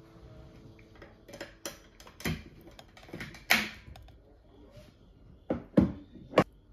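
Tableware being handled at a meal: chopsticks and a sauce bottle clicking and knocking against a ceramic plate and a wooden table, with a short squirting hiss as sauce comes out of the bottle. The three loudest knocks come near the end, about half a second apart.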